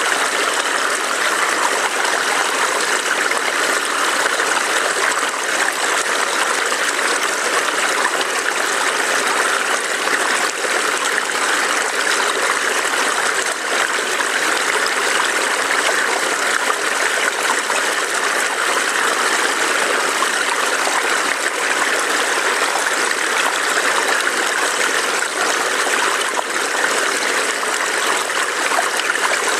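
A small forest stream burbling and trickling over rocks, a steady rushing water sound with no breaks.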